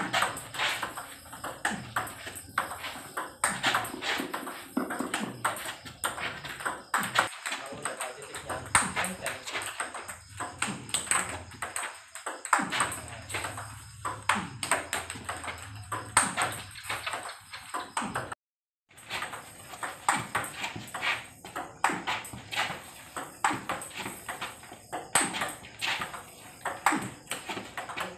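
Rapid, continuous clicking of celluloid-type table tennis balls in multiball practice: balls fed across the table, bouncing on the tabletop and struck hard by the player's bat, several clicks a second. The sound cuts out completely for about half a second around eighteen seconds in.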